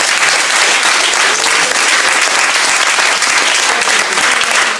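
Loud applause: a small group clapping their hands together steadily.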